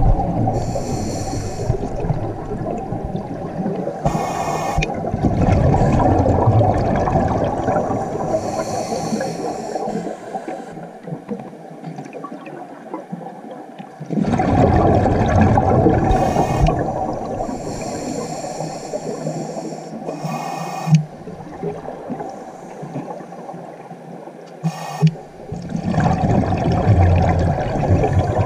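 Scuba diver breathing through a regulator underwater: short hissing inhalations alternate with long, loud bubbling exhalations, over several breath cycles.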